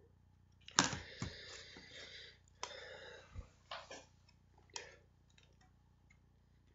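Plastic CDs being handled: a sharp click, a couple of seconds of discs rubbing and clattering together, then a few separate clicks as a single disc is taken off the stack.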